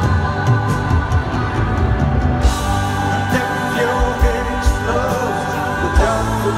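A live rock band playing with singing: guitars, backing vocals, and drums with regular cymbal hits, heard from the audience in an arena.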